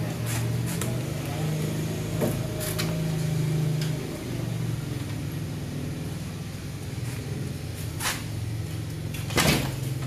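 Scattered knocks and scrapes as a cat clambers over a wooden table and into a plastic crate, the loudest knock near the end, over a steady low hum.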